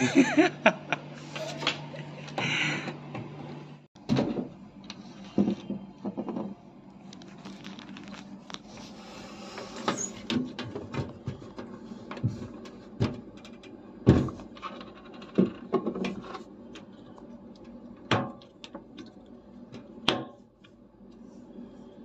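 Scattered clicks and knocks of hands working at the back panel of a washing machine: shipping bolts being handled and plastic caps being fitted into the bolt holes. A low steady hum cuts off about four seconds in.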